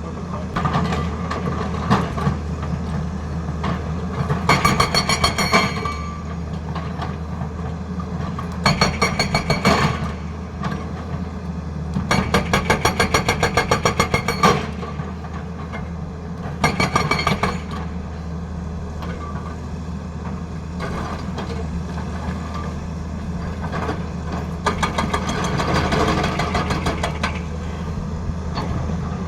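Tata Hitachi excavator's diesel engine running steadily while its hydraulic breaker hammers in five bursts of rapid blows, the longest lasting about two and a half seconds, in the middle of the stretch.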